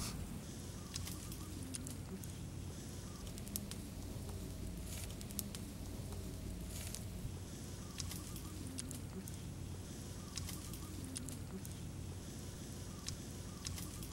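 Outdoor ambience: faint short bird calls recurring every couple of seconds over a low steady hum, with scattered small clicks.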